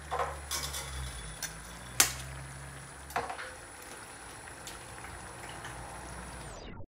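Tomato-onion egg gravy simmering and bubbling in an aluminium kadai, over a low hum. Eggs are cracked into it, with a sharp tap about two seconds in and a few lighter clicks. The sound cuts off just before the end.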